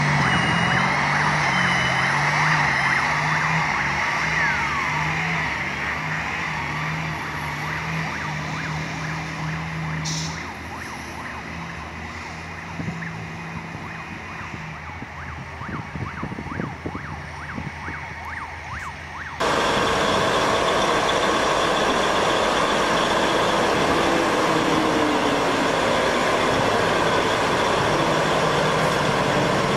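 Heavy vehicle engines running, with street traffic noise and many sharp clicks, slowly getting quieter. About twenty seconds in, a sudden cut to a louder, steady heavy engine noise.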